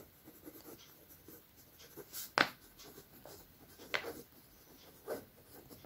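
Pen writing on a sheet of paper: faint scratching strokes, with a few sharper ticks, the loudest about two and a half seconds in.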